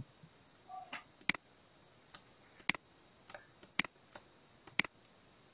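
Computer mouse button clicking while handwriting on-screen: a dozen or so short, sharp clicks at irregular intervals, several in quick double pairs.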